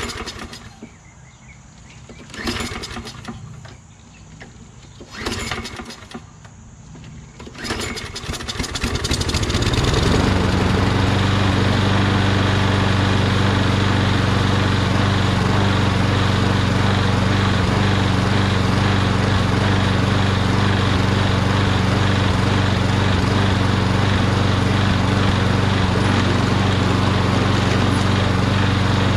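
Toro Recycler Personal Pace walk-behind mower's engine being pull-started on a freshly cleaned carburetor. Several short pulls on the starter rope come first; the engine catches about eight seconds in, picks up, and then runs steadily.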